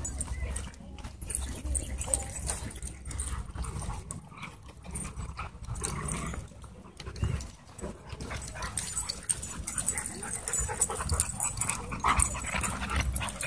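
Several dogs playing together, with occasional whimpers and yips over a low rumble on the microphone.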